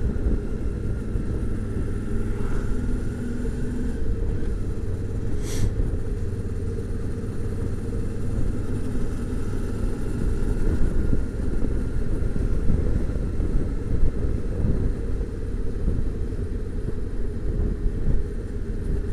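Motorcycle running at road speed: a steady engine and road rumble, with one sharp click about five and a half seconds in.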